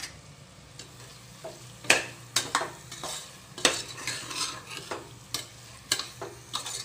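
Metal spatula stirring and scraping prawn masala against the bottom of a pressure cooker pot, irregular strokes about every half second, as yogurt is mixed into the hot masala, with a low sizzle of the frying food underneath.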